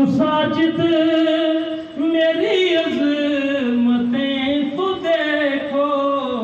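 A man singing an Urdu devotional poem unaccompanied, drawing out long, wavering held notes without words that slide lower near the end.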